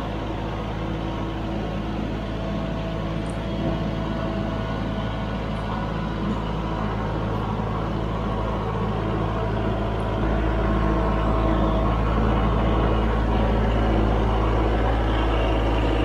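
Kubota MX5400 tractor's four-cylinder diesel engine running steadily as the tractor drives up, growing louder as it nears and stepping up about ten seconds in.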